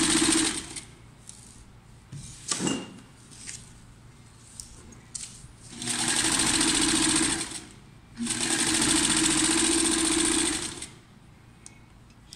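Electric sewing machine stitching heavy gabardine in three runs: a run ending about half a second in, one of about two seconds some six seconds in, and one of about two and a half seconds after a short pause. Faint clicks and rustles of fabric being handled fill the gaps.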